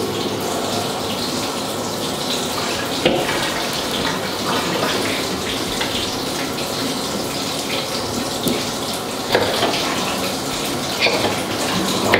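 Bathtub spout running, water pouring into a filling tub, with a few brief knocks.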